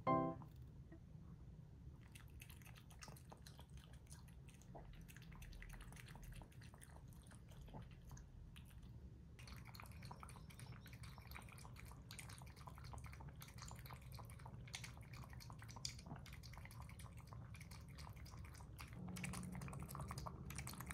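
Pomeranian lapping water from a small glass bowl: faint, quick wet clicks of tongue in water, getting busier about halfway through.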